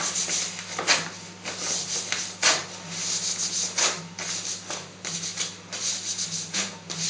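Gloved hands rubbing and rustling over a waxed leg and a wax strip, a run of rubbing strokes with several sharper scrapes, over a steady low hum.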